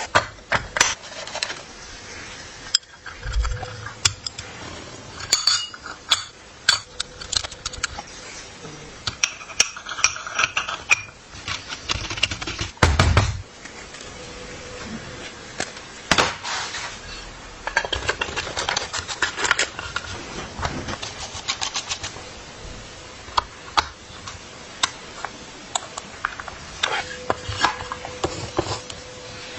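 Metal bicycle parts and hand tools clinking and clanking in an irregular string of sharp knocks and rattles, with a few heavier thumps.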